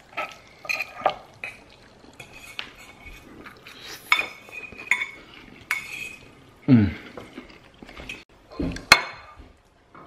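Metal forks clinking and scraping against ceramic bowls while eating, in a string of separate light clinks, the sharpest one near the end.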